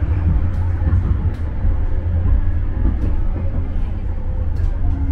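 A tram running, a steady low rumble of wheels on rails with a few faint sharp clicks.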